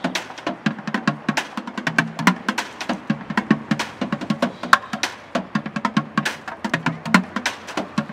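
Bucket drumming: plastic buckets mounted on traffic cones struck in a fast, dense rhythm of hollow low thuds mixed with sharp cracks.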